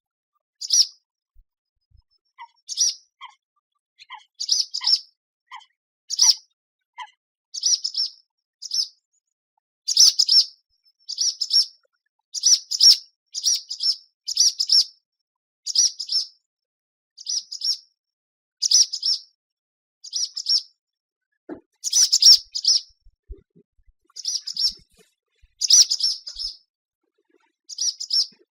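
Swallow calling: short, high chirps repeated about once or twice a second in loose runs, with a few fainter, lower notes in the first seven seconds.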